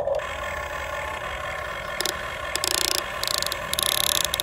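A Huina RC excavator's small electric motors and gearboxes whine steadily as the boom lowers and the bucket is driven into loose dirt. Several short, louder rasping bursts come in the second half.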